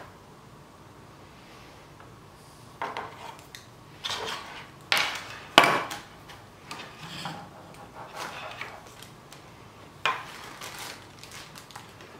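LED light bars and their cords being handled on a wooden workbench and against a PVC channel: a few sharp knocks and clatters, the loudest about halfway through, with softer handling rustle between.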